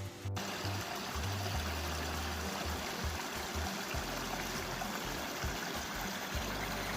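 River water running steadily, with background music underneath.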